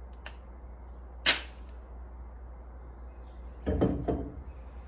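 An M-48 Viking axe blade chopping through a single sheet of paper: one sharp, crisp strike about a second in. A few duller handling sounds follow near the end.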